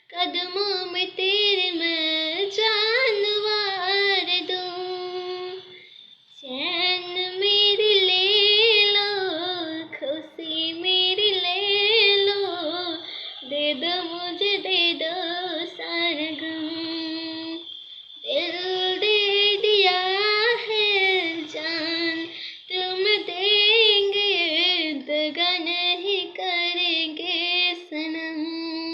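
A boy singing a song solo in a high voice, in long ornamented phrases with short breaks between them.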